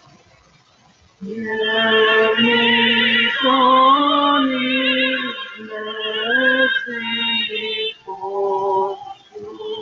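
A soprano singing a hymn in operatic style with a wide vibrato, played from a recording. The singing comes in about a second in, after a brief hush.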